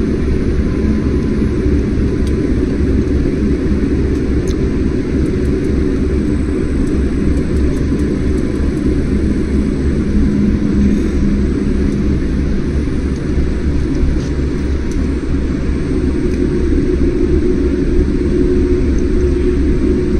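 Steady low rumble of an airliner's jet engines and ground-rolling noise, heard inside the passenger cabin as the plane moves along the ground toward takeoff.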